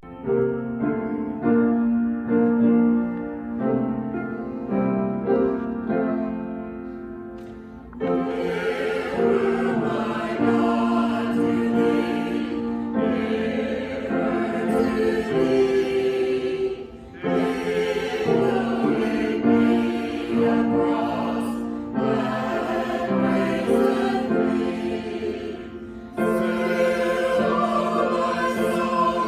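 Choir singing church music, soft at first and growing fuller about eight seconds in, with short breaks between phrases.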